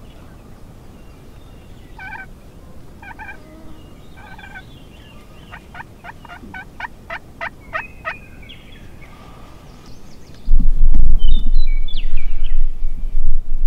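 Wild turkeys calling: three spaced calls, then a quick run of about ten sharp notes. About ten seconds in, a sudden loud low rumbling noise starts and becomes the loudest sound.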